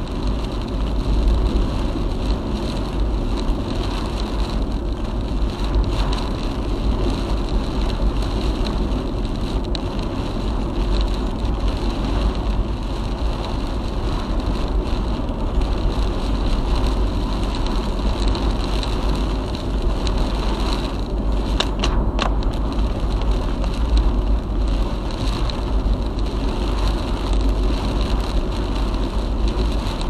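A car driving on an expressway through typhoon weather: a steady roar of tyre, wind and rain noise over a heavy, constant low rumble.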